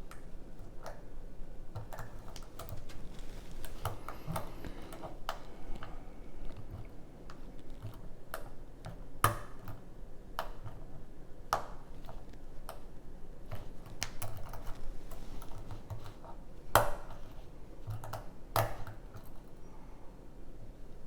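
Small irregular metallic clicks and ticks of a lock pick and tension wrench working the pins of a six-pin lock, with a few sharper, louder clicks now and then.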